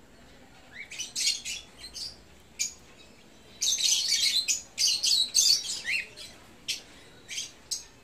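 A flock of African lovebirds chattering with shrill chirps and squawks. The calls begin about a second in, come thickest in the middle, and thin to scattered calls near the end.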